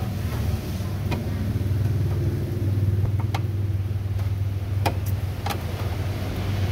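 Steady low hum of a running engine. Four short, sharp clicks sound over it as brake line fittings are worked into the master cylinder by hand.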